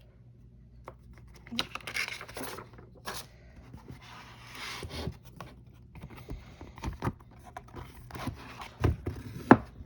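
Packaging being handled during an unboxing: paper and cardboard rustling and scraping, with scattered light taps and knocks, a few sharper near the end.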